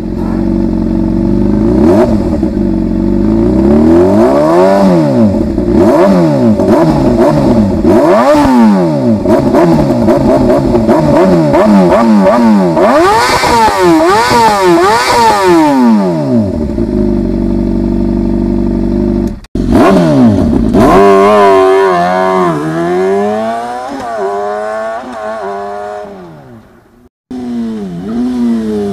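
Small motorcycle engine revving again and again, its pitch rising and falling with each blip of the throttle, then holding a steady idle for a few seconds. After a short break it revs up and down once more and fades away.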